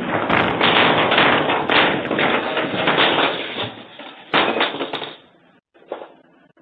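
Loud, close scraping and crackling with scattered clicks as a cat brushes and clambers against the security camera. The noise dies down at about four seconds, comes back in a short burst a little later, and ends with a single tap.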